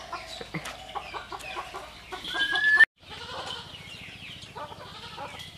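Farmyard chickens clucking in short calls. Just before the middle, a louder rising call is cut off abruptly, followed by a moment of silence before the clucking resumes.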